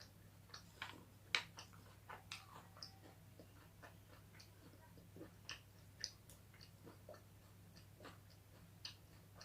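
Faint chewing on cooked chicken bones: irregular small crunches and wet mouth clicks, the sharpest about a second in, over a low steady hum.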